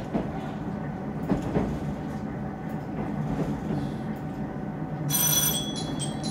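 Tarumi Railway Haimo 330-700 diesel railcar running, heard from inside the car: a steady rumble with a few wheel knocks over rail joints. Near the end comes a brief hiss with high ringing tones.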